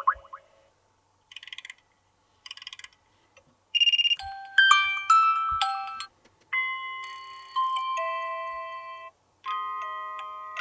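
Vivo Y33s default alarm tones previewed one after another: short electronic melodies and chimes, each cut off abruptly after one to three seconds with a brief silence before the next. The first two are short pulsing snippets; from about four seconds in come longer melodic chimes of held notes.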